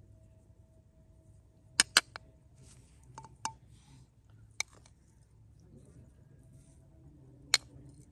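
A metal spoon clinking and tapping against small bowls and a clay dish as spices are scooped and spooned out: two sharp clicks about two seconds in, a few lighter taps in the middle, and one more sharp click near the end.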